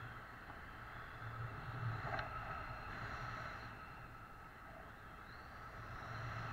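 Wind rushing over an action camera's microphone in flight under a tandem paraglider, a low rumble that swells and eases.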